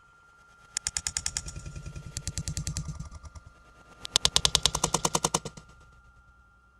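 Rapid rattling clatter in two runs: one starting about a second in and lasting over two seconds, then a louder run at about four seconds that ends abruptly. A faint steady high tone lies beneath.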